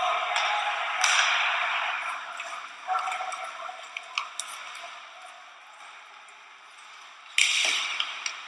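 Live ice hockey game sound from the stands: a steady rush of rink and crowd noise with a few sharp clacks of sticks and puck. The noise jumps up suddenly about a second in and again near the end, then fades.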